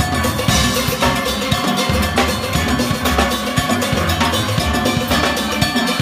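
Steelband engine room playing a driving rhythm: drum kit and clanking metal percussion hit in a steady pattern, with steelpan notes in the mix.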